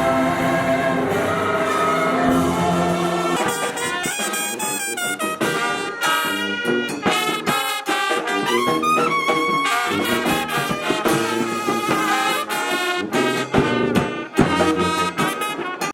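Music with brass instruments, trumpet-like: held chords at first, then from about four seconds in a run of short, quick notes.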